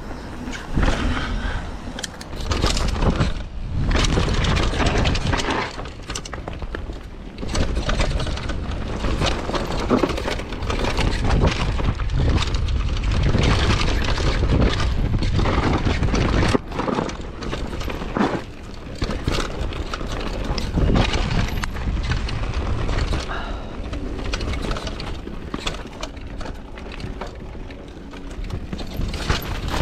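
Downhill mountain bike riding a rough trail: wind rumbling on the action camera's microphone, with frequent knocks and rattles from the bike over uneven ground.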